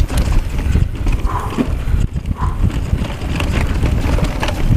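Mountain bike ridden fast down a rough, dry trail, heard from a headcam: wind buffeting the microphone under the rattle and irregular knocks of tyres, chain and frame over roots and rocks, with the rider's hard breathing.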